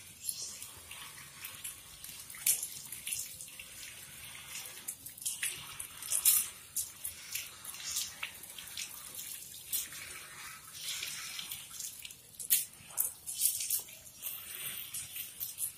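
Water from a garden hose running and splashing over a soapy puppy's coat and onto a tiled floor, with irregular louder splashes as hands rub it down.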